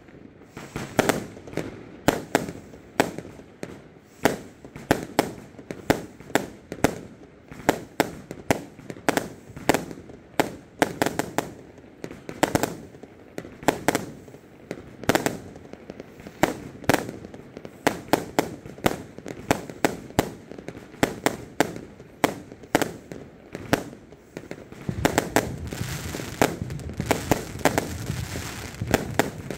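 Consumer firework cake (battery) firing shot after shot, a sharp bang about twice a second. In the last few seconds a dense crackling fills the gaps between the bangs as crackle-effect shells burst.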